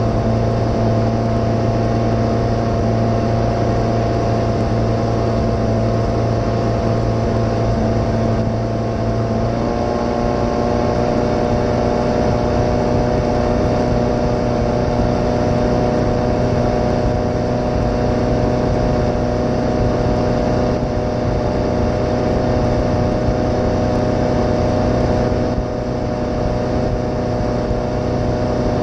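Glastron 1700 bowrider's engine running steadily under way, with wind and water noise. The engine note shifts slightly about ten seconds in.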